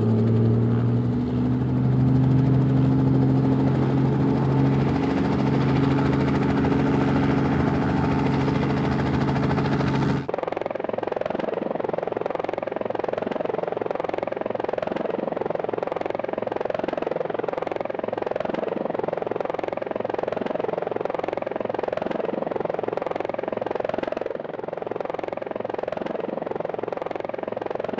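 Steady drone of aircraft propellers and motors: for about the first ten seconds a low hum with several steady tones, then an abrupt cut to a rougher, buzzing drone that holds for the rest.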